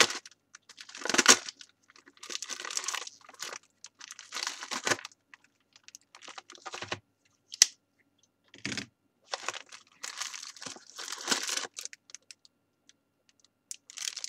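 A mailing envelope being torn open and its packaging crinkled and rustled by hand, in irregular bursts, with a sharp click about seven and a half seconds in.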